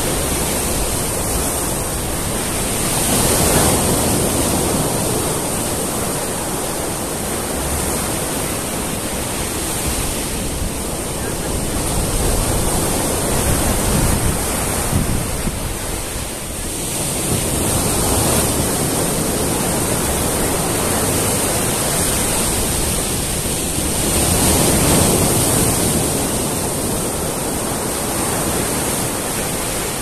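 Sea surf breaking over boulders onto a sandy shore: a steady wash of noise that swells as each wave breaks, every several seconds.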